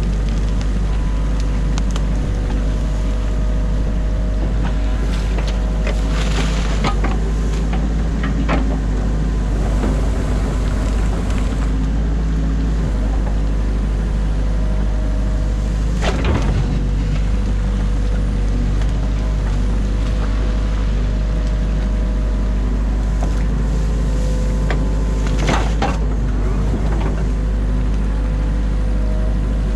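Excavator's diesel engine running steadily under load, heard from inside the cab, as the boom and bucket dig, with a few short knocks and scrapes.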